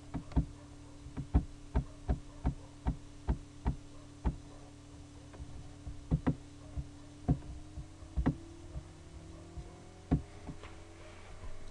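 Computer mouse clicking close to the microphone: a run of sharp clicks about two or three a second for the first four seconds, then scattered single clicks. A faint steady hum runs underneath.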